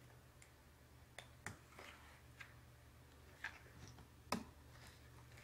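Faint small clicks and taps of plastic and metal parts, as gloved hands fit a new CMOS backup battery into an opened laptop's motherboard. There are several scattered clicks, the sharpest a little past four seconds in, over a low steady hum.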